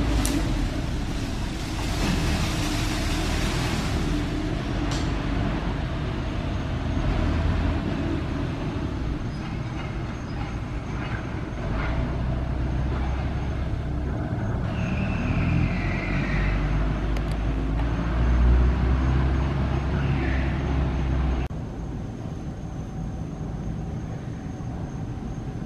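Steady low rumble of outdoor background noise, with a short high falling squeal about fifteen seconds in; the low rumble drops away about twenty-one seconds in.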